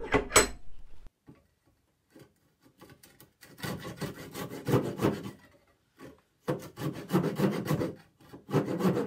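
Fine-toothed backsaw sawing back and forth in the wedge slot of a wooden tenon clamped in a vise, clearing leftover wood from the slot. There are a few knocks in the first second, a quiet pause, then three short runs of rapid saw strokes.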